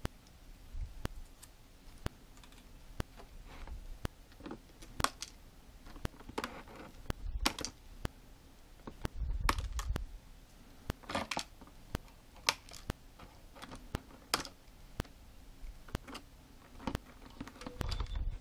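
Repeated sharp clicks of small flush cutters snipping the plastic ties that hold a toy figure in its display box, among low knocks and rustling of the cardboard-and-plastic packaging being handled.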